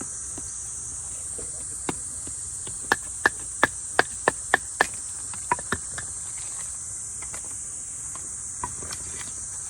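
Crickets chirring steadily in a high band. About three seconds in comes a run of about seven sharp, ringing knocks, roughly three a second, then two more just after.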